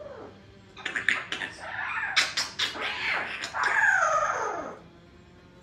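Congo African grey parrot babbling, a run of clicks and sliding whistles with no clear words, ending in a long falling call of about a second, like a cat's meow.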